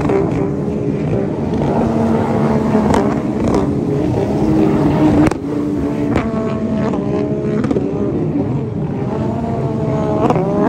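A pack of racing runabout personal watercraft (sit-down jet skis) running at high revs, several engine notes overlapping, their pitch rising and falling as they power through the turns; one climbs sharply near the end.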